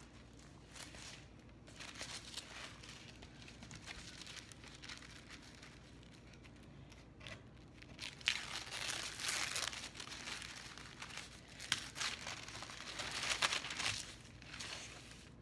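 White wrapping paper being crinkled and torn by hand as a package is unwrapped. Soft rustling at first, then louder, busier crinkling from about halfway through, easing off just before the end.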